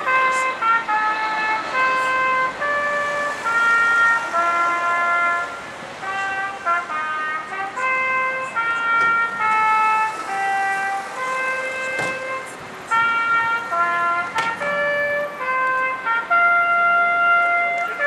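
A tune played from the clock tower, one held, trumpet-like note at a time, stepping up and down. It stops at the end.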